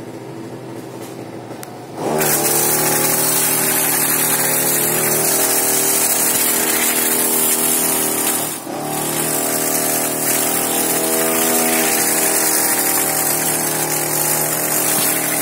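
Petrol brush cutter's engine, quieter at first, opens up to high revs about two seconds in and runs steadily at full throttle while the trimmer head cuts grass, with a brief drop in revs a little past halfway.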